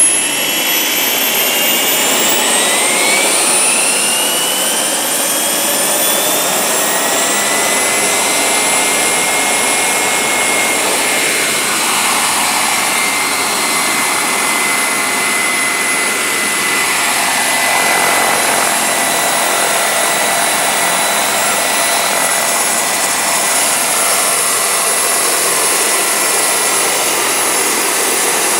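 Wren MW54 model gas turbine in an RC helicopter, running loud: its high whine rises in pitch over the first few seconds as it spools up for lift-off, then holds steady while the helicopter hovers, over a constant rush of air.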